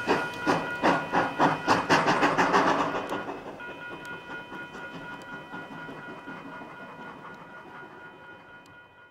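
Viscose Company 6, an 0-4-0 tank steam locomotive, and its train passing: rhythmic beats about three a second, loudest about two seconds in, then dying away. Under them a grade-crossing bell rings steadily, and all of it fades out toward the end.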